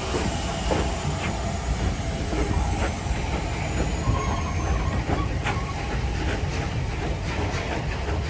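A pair of Bulleid Light Pacific steam locomotives, Taw Valley and Manston, rolling slowly past light engine: a steady low rumble of wheels on rail with irregular clanks, and steam hissing from around the cylinders. A faint high wheel squeal slides slowly down in pitch a couple of seconds in.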